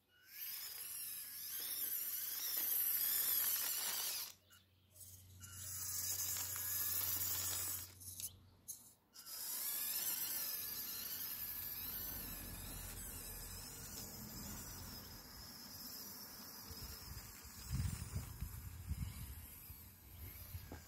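A 3D-printed 1/16 scale RC model tractor's small electric drive motor and gears whining as it drives, cutting out briefly twice, about four and eight seconds in. Some low rumbling near the end.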